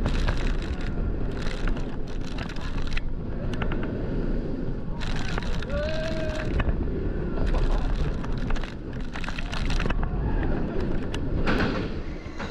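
Wind rushing and buffeting the microphone of a rider on the Black Mamba inverted roller coaster at speed, with the rumble and clatter of the train. There is a short cry from a rider about halfway through.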